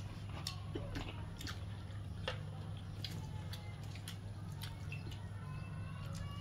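A person drinking from a plastic bottle, with small swallowing and dripping clicks over a steady low hum. A few faint high gliding calls sound in the background.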